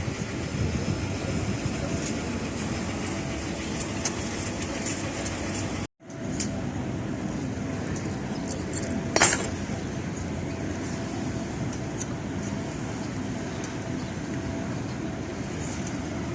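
Steady rumble of a moving vehicle, broken by a sudden brief gap about six seconds in, with a short louder sound about nine seconds in.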